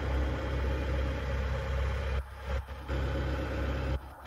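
Genie S65 boom lift's engine idling with a steady low hum.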